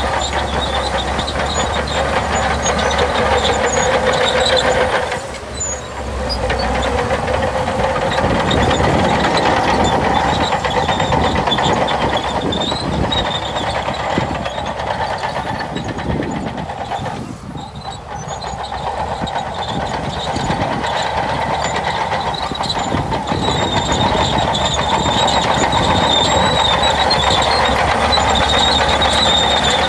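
Shantui DH17C2 crawler bulldozer working: its diesel engine and steel tracks running steadily. The sound drops off briefly twice, about five seconds in and again past the middle, then picks up again.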